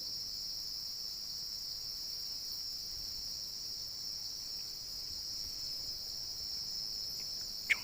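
A chorus of insects keeps up one steady, unbroken high-pitched trill. A brief sharp click comes right at the end.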